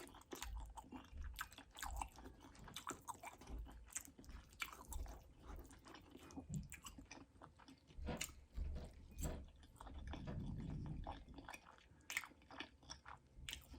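A person chewing food close to the microphone, with irregular wet mouth clicks and smacks.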